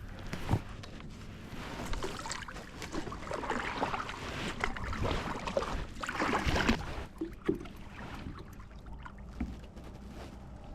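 Kayak on the water: paddle strokes splashing and water sloshing, with a few knocks against the hull, loudest in the middle and easing off after about seven seconds.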